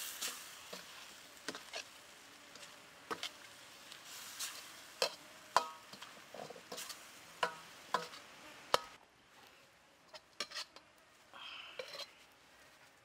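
Metal ladle stirring stir-fried noodles in a steel wok, with irregular sharp clanks and scrapes against the pan over a steady sizzle. The sizzling stops about nine seconds in, leaving only a few faint clicks.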